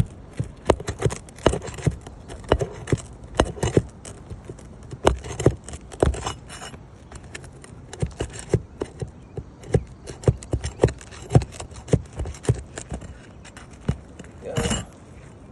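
A metal roofing tool knocking and scraping on asphalt shingles as the shingle and its nails are worked loose: a steady string of short, sharp knocks, about two or three a second, with a longer, louder scrape near the end.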